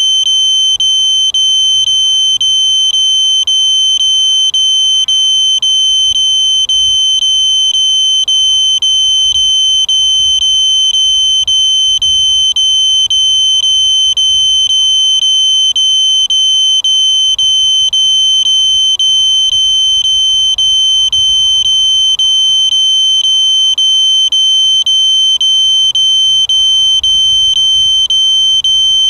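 A loud, steady, high-pitched electronic tone that never breaks, with faint ticks about twice a second.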